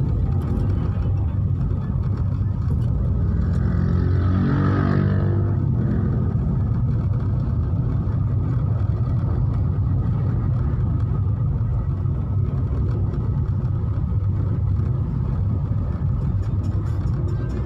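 Car driving on a city road, heard from inside the cabin: a steady low engine and road-noise rumble, with a brief louder swell that changes pitch about four to five seconds in.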